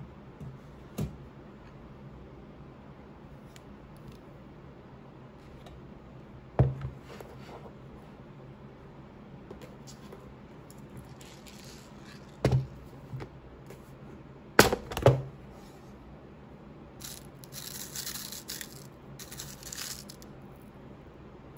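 Handling noise: a few sharp clicks or knocks, spaced several seconds apart with two close together past the middle, then a few seconds of soft rustling near the end.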